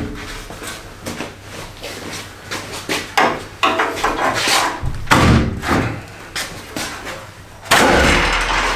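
A BMW E30's steel front core support being rocked and pulled free of the car's front end. It gives irregular metal clunks, bangs and scraping, loudest near the end.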